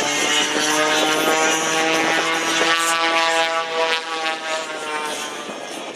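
An Extra aerobatic airplane's piston engine and propeller drone as it passes. The pitch sinks slightly and the sound fades over the last couple of seconds.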